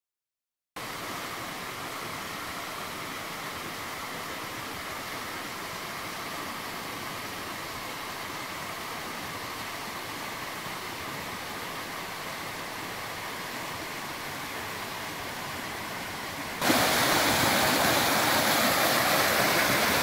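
Small waterfall spilling down a rock face into a pool: a steady rush of falling water that starts after a brief silence and becomes much louder about three-quarters of the way through, when it is heard close up.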